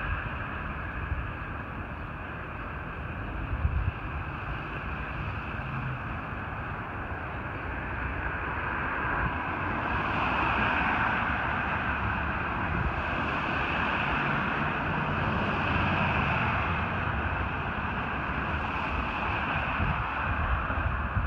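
Federal Q2B mechanical siren wailing at a high, held pitch, swelling and easing about every three seconds, over the rumble of the fire engine's engine.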